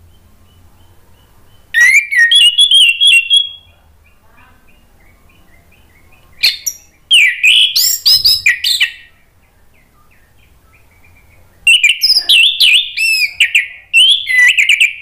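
Orange-headed thrush (anis merah) in full loud song, delivering three bursts of fast, varied whistled phrases, each two to three seconds long, with faint chirps in the pauses between.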